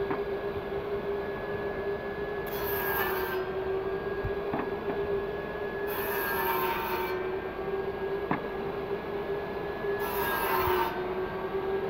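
Bosch GTS 10 J table saw and a Record Power CX2500 dust extractor running, with a steady high whine. Small pieces of wood are cut three times, each cut adding about a second of sawing noise.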